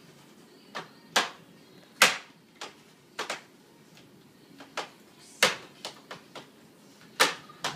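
Irregular sharp knocks and clicks at an office desk, about a dozen, four of them loud: a computer mouse being banged and clicked on the desk because the fluff stuck under it stops it tracking.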